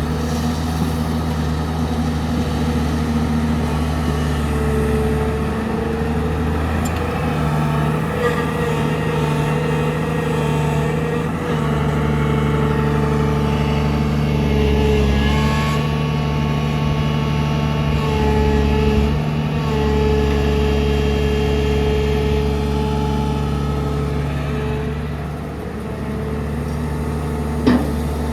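JCB 3DX backhoe loader's diesel engine running under load, its note rising and falling as the hydraulics work. There is a single sharp knock near the end.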